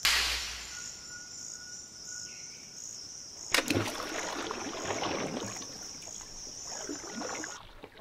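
A ripe rubber tree seed capsule bursts open with a sudden crack, flinging out its nuts. About three and a half seconds in, a nut splashes into floodwater, followed by a few seconds of bubbling water. Insects chirr steadily underneath until shortly before the end.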